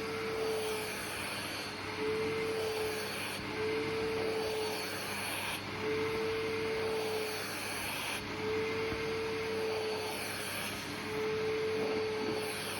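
Vacuum cleaner running, with a tone that comes and goes about every two seconds as the suction changes.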